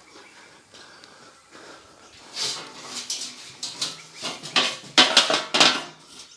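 Irregular clatter and knocks of hard objects being handled, starting about two seconds in and loudest near the end.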